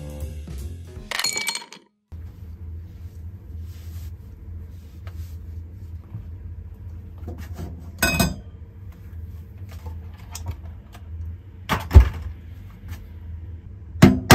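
Kitchen clatter: a few sharp clinks and knocks of dishes and utensils over a steady low hum, the loudest knock about twelve seconds in. Background music ends about two seconds in.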